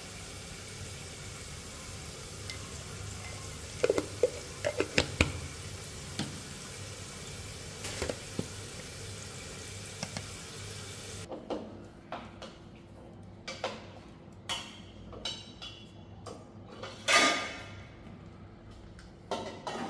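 Food sizzling in a hot pan, with a few sharp knocks of a utensil. The sizzle cuts off suddenly a little past halfway, followed by scattered knocks and clatter of kitchenware, the loudest near the end.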